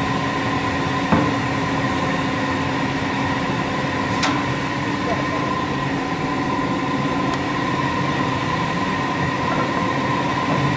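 Steady mechanical hum with a constant whine from workshop machinery, broken by a few short sharp clicks, the clearest about four seconds in.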